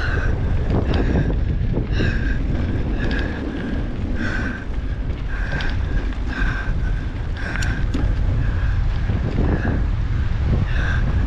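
Mountain bike riding down a trail, heard from a handlebar-mounted camera: a steady rumble of tyres and rattle over the ground with wind buffeting the microphone. Short, high squeals come about once a second.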